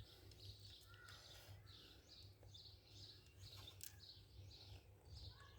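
Near silence: faint short chirps repeating about two or three times a second over a low steady hum, with one faint click about two-thirds of the way through.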